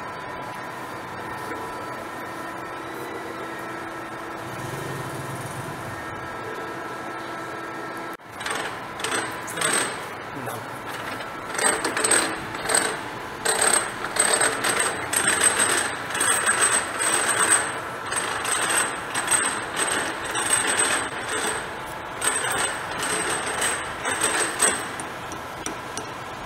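Machine-shop noise: a steady machine hum with a few held tones, then, after an abrupt change about eight seconds in, irregular metallic clatter and knocks over a faint high steady whine.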